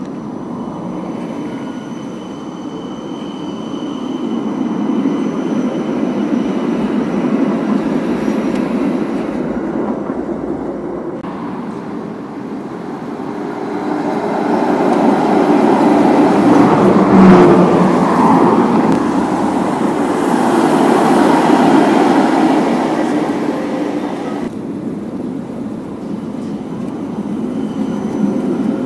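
City trams running on street tracks: a steady rumble of steel wheels on rail that swells as a tram passes close, loudest about halfway through, over light street traffic.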